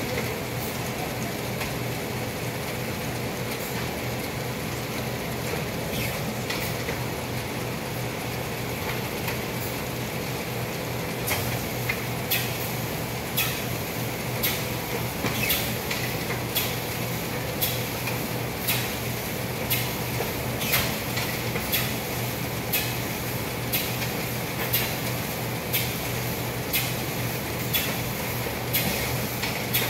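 Small offset printing press running with a steady hum. From about eleven seconds in, paper is feeding through the rollers and a sharp click repeats about once a second.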